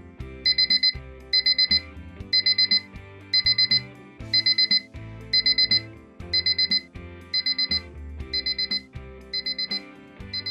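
Sunrise alarm clock sounding its beep alarm: bursts of four quick high-pitched beeps about once a second, over music. The beeps grow quieter after about seven seconds.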